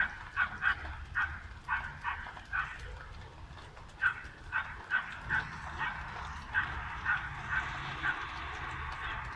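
A dog barking over and over, about two barks a second, over a steady low rumble.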